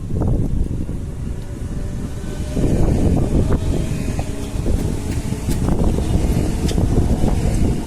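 Train passing close by, its rumble mixed with heavy wind buffeting on the microphone. It grows louder about two and a half seconds in.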